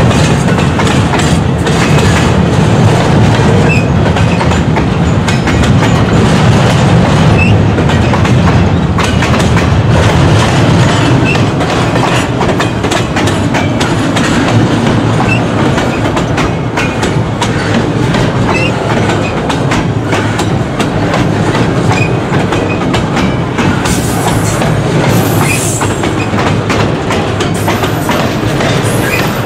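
Double-stack intermodal freight cars rolling past, their steel wheels clattering over and over across the joints of older jointed rail. A brief high wheel squeal comes near the end.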